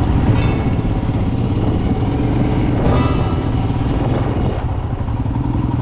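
Royal Enfield Himalayan's single-cylinder engine running at low speed as the motorcycle rolls into a car park, with a steady low engine note. A rush of noise from about three seconds in lasts over a second.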